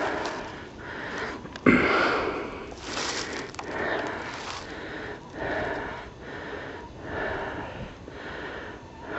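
Footsteps crunching and shuffling through dry fallen leaves, about one step a second, with one sharp thump a couple of seconds in.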